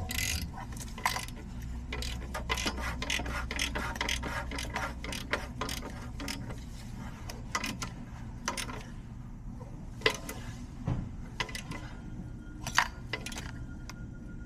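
Ratchet wrench clicking as it turns an O2 sensor socket on an extension, running in a new upstream oxygen sensor. The clicks come fast for most of the stretch and thin out toward the end as the sensor seats.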